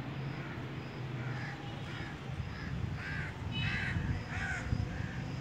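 A bird calling over and over with short, harsh caw-like calls, about two a second, the loudest few about three to four and a half seconds in, over a low steady rumble.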